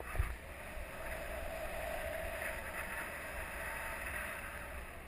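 Mountain bike tyres rolling fast over a loose gravel and dirt trail, with the low rumble of wind on the camera's microphone. A single bump knocks through about a quarter second in.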